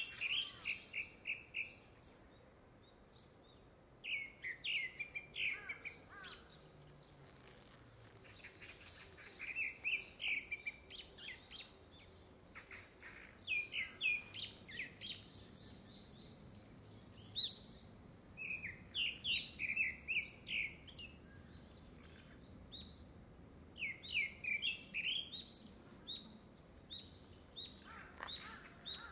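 A Gray-backed Thrush singing: short phrases of quick, repeated clear notes, one about every four to five seconds. The song seems to be courtship song ahead of a second brood.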